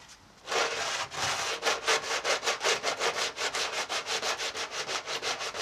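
Sanding sponge rubbed by hand over body filler on a car's wheel arch edge, in quick back-and-forth scratching strokes at about five a second. The strokes start about half a second in and run without a break.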